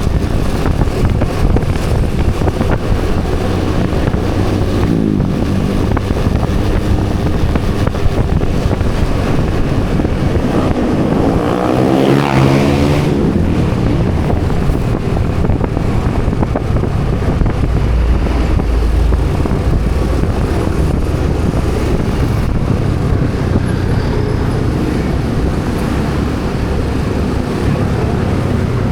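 Steady road and wind noise from riding in traffic, with another vehicle's engine rising and then falling in pitch as it passes about twelve seconds in.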